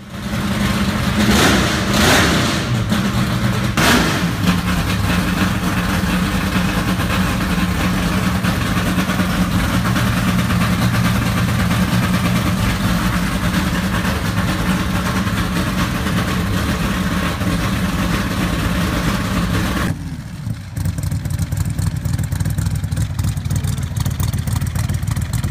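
The Dodge Polara Ramcharger's V8, topped with two four-barrel carburettors, is blipped three times in the first few seconds and then idles steadily. About 20 s in it cuts to a Shelby Daytona Coupe replica idling lumpily through its side exhaust pipes.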